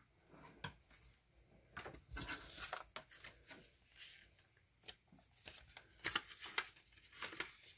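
Hands handling photocards and a paper-wrapped package: soft paper rustling and light taps in short patches with quiet gaps between.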